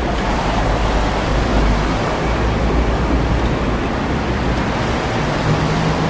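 Steady noise of a busy city street in the rain: a continuous hissing rush over a deep traffic rumble, with a faint engine hum coming in near the end.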